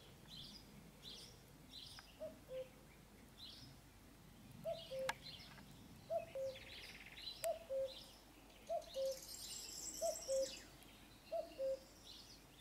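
Birds singing: high, short chirps throughout, and from about two seconds in a low two-note call, the first note higher and the second lower, repeated about every second and a quarter.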